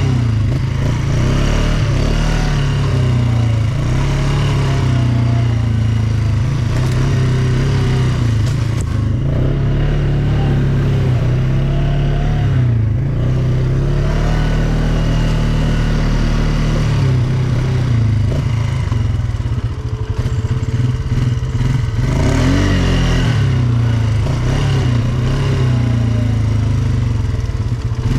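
ATV engine running under way, its pitch rising and falling again and again with the throttle.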